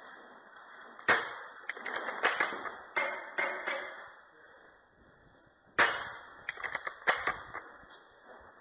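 Two sharp airsoft sniper rifle shots, about a second in and again near six seconds, each followed by a quick string of clicks and knocks.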